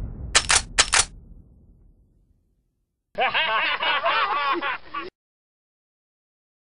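Two gunshot sound effects about half a second apart, over music that fades out. About three seconds in, a group of young men laugh together for about two seconds, cut off suddenly.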